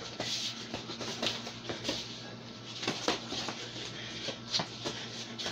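Irregular soft slaps and knocks of two people sparring hand to hand: punches and blocks landing on arms and body, with shuffling movement, over a steady low hum.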